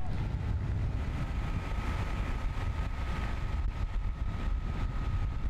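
Steady low engine-and-wind rumble from a moving motor vehicle travelling alongside a racing cyclist, with a faint thin steady whine from about a second in.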